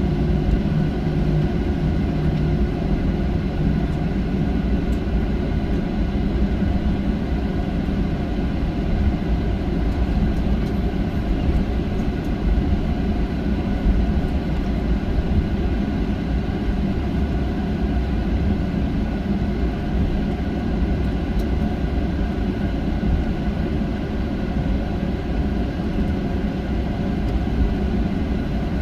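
Boeing 737-900 cabin noise from its CFM56 jet engines, heard from inside the cabin while the airliner rolls on the runway before takeoff. It is a steady deep rumble with faint steady hum tones above it, and it neither rises nor falls.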